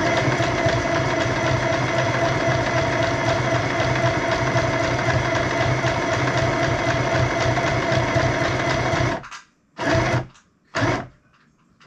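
Small electric mini sewing machine stitching a straight seam through fabric: a steady hum with a fast, even stitching rhythm that runs for about nine seconds and then stops. Two brief sounds follow near the end.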